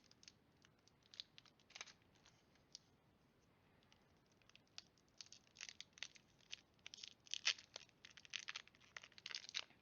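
Foil wrapper of a Pokémon Brilliant Stars booster pack crinkling and tearing as it is opened by hand. The sound is a scatter of faint crackles that gets busier about halfway through.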